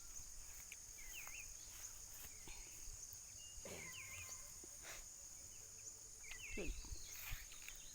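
A steady high insect drone, like crickets, with short bird chirps every second or two.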